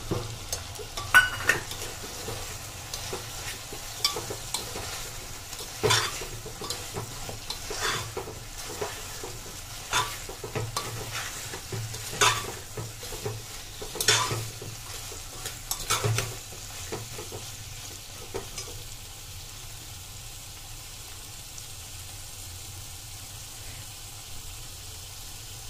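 Potatoes, carrots and green beans sizzling in oil in an aluminium pressure cooker while soya chunks are stirred in with a spatula that scrapes and knocks against the pot about every two seconds. The stirring stops about two-thirds of the way through, leaving only a steady sizzle.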